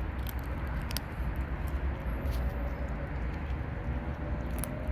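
Kittens crunching dry cat food: faint scattered crisp clicks over a steady low rumble. A faint hum comes in about halfway and rises slightly in pitch.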